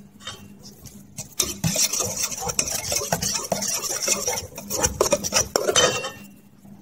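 Wire whisk beating a runny batter of eggs, yogurt, milk and melted butter in a metal mixing bowl: rapid wet clattering and scraping of the wires against the bowl, starting about a second and a half in and stopping shortly before the end.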